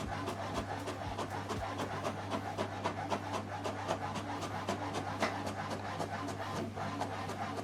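HP DeskJet 4100-series inkjet printer printing a page: rapid clicking and whirring from the paper feed and print-head carriage over a steady low hum.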